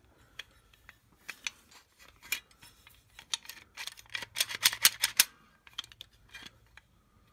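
Steel cart parts, a black steel bracket and a plated bent steel rod, clicking and clinking as they are handled and fitted together by hand. The clicks are scattered, with a busier run of them about four to five seconds in.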